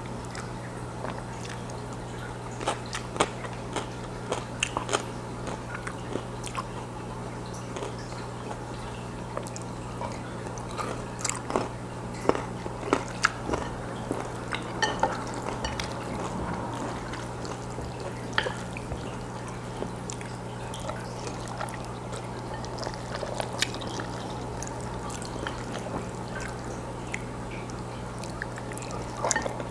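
Close-miked chewing of black bean noodles (jjajangmyeon): irregular mouth clicks and smacks, a few louder ones around the middle, over a steady low electrical hum.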